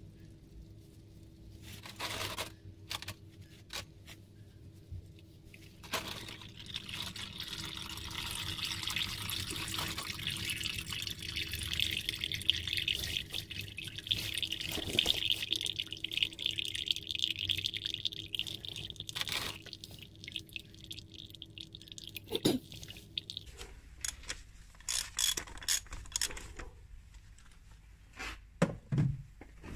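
Used engine oil draining from the sump of a diesel car into a cut-open plastic canister: a steady pouring stream that starts about six seconds in and fades out about sixteen seconds later. A few clicks and knocks of handling come before and after.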